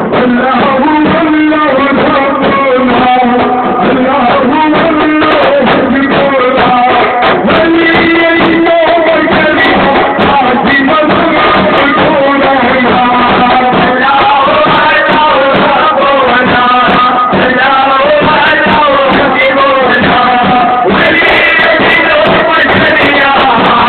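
Sufi devotional chanting of a Rifa'i ratib sung into a microphone, with drums beating steadily along.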